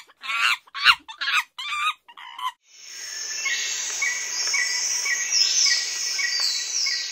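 A quick series of pitched, bird-like animal calls for the first two and a half seconds. Then a steady high hiss of outdoor ambience, with a short chirp repeating about every half second.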